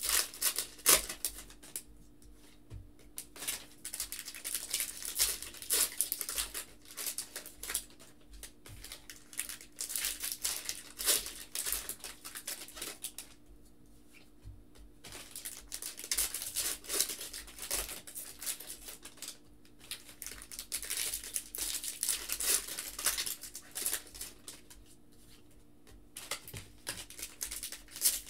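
Foil trading-card pack wrappers crinkled and torn open, and the cards inside flicked and slid against one another. The rustling comes in bursts with short pauses between packs.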